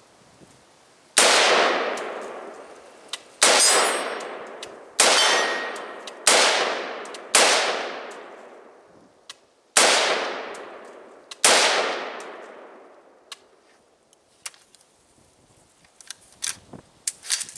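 Seven rifle shots from a CMMG AR-15-style rifle with a 20-inch barrel, fired at an unhurried pace one to two and a half seconds apart, each trailing off in a long echo. After the last shot, only a few faint clicks and rustles.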